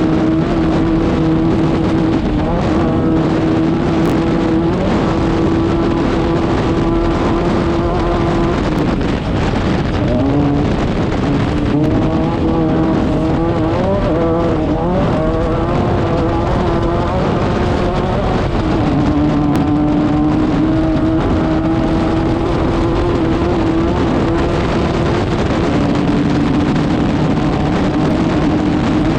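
Air-cooled 1600cc VW flat-four of a Class 5/1600 off-road race car running hard at steady high revs. The revs dip about nine seconds in and waver up and down for several seconds before holding steady again.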